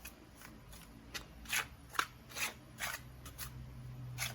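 Dry flour and cornstarch with seasonings being stirred in a bowl. It makes short scratchy strokes, about one every half second.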